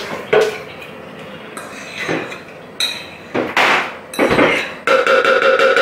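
A metal fork scraping and tapping mashed banana off a ceramic plate into a plastic blender jug. There are several sharp clinks and scrapes, then a steady squeaky scrape for about the last second.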